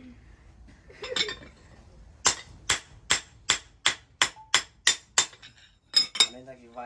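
Hand hammer striking a steel axe head on its wooden handle to drive it tight: one sharp ringing blow, then a steady run of about nine quick metallic blows, about two and a half a second, and two more near the end.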